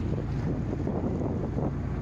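A small workboat's engine running steadily with a low hum, with wind buffeting the microphone and water rushing past the hull.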